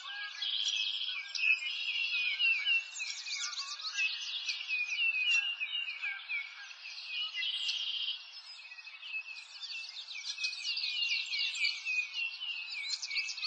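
Many small birds chirping and twittering at once, a dense run of overlapping short high chirps that thins out briefly about eight seconds in.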